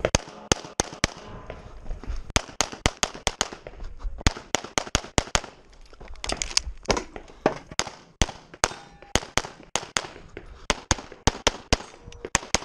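Rapid pistol fire from a Walther Q5 Steel Frame handgun: many sharp shots in fast strings, often in quick pairs, broken by a couple of brief pauses.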